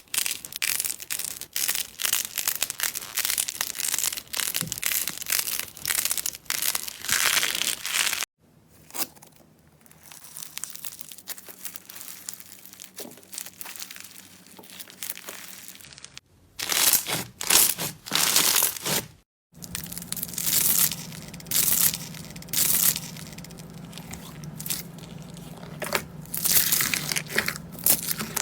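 Slime being squeezed and pressed by hand, giving dense runs of crackling and crinkling pops. These come in several separate clips, with a quieter stretch in the middle.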